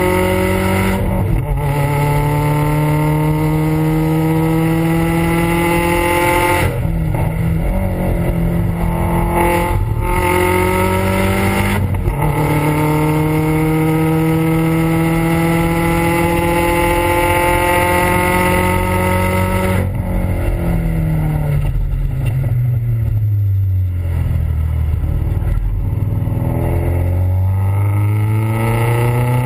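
Subaru WRX STI's turbocharged flat-four heard through its exhaust from right at the tailpipe, pulling hard on track. The note climbs in pitch, with short breaks at each gear change. About twenty seconds in the revs fall away for several seconds as the car slows, then climb again as it accelerates out.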